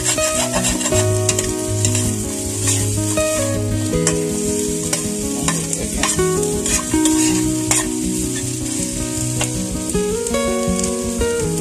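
Chicken pieces and green peppers sizzling in a hot wok as they are stir-fried, a metal spoon stirring and scraping against the pan with frequent clicks. Held tones that step in pitch, like background music, run underneath.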